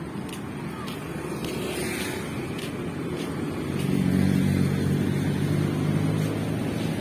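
Street traffic: steady road noise, with a motor vehicle's engine passing close by from about four seconds in, its low hum louder for a couple of seconds before fading.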